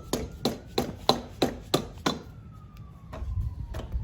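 A quick run of sharp blows, about three a second, then two more near the end, knocking the cylinder head of a Kawasaki KLX110 loose after its bolts are removed. A faint siren wails slowly up and down behind it.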